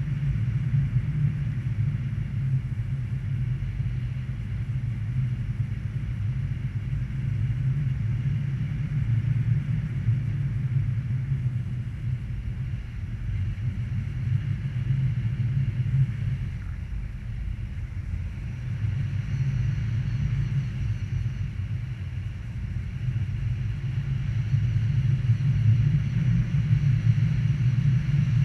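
Wind buffeting the camera microphone during a speedflying flight: a steady low rumble that grows louder over the last few seconds.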